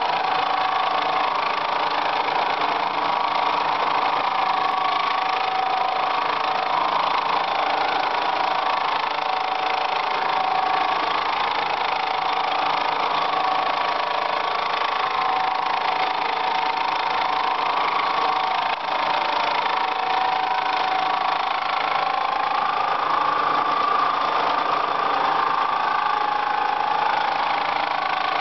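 Vertical milling machine's cutter taking a continuous cut in stainless steel: a steady, rough machining noise with a couple of slightly wavering tones riding on it.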